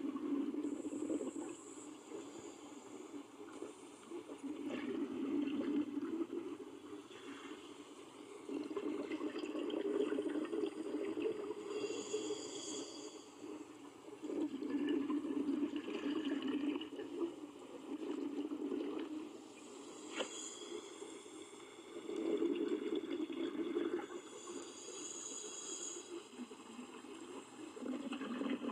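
Sea water moving over the seabed, a low rushing surge that swells and ebbs every few seconds. Faint high tones and scattered clicks sound over it.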